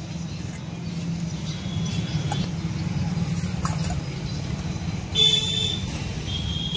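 Road traffic with a vehicle engine running steadily. About five seconds in a loud, high-pitched horn sounds, and a second shorter honk follows near the end.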